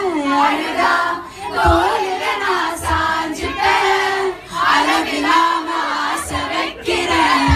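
A crowd singing together, many young voices, women's most prominent, with crowd noise underneath.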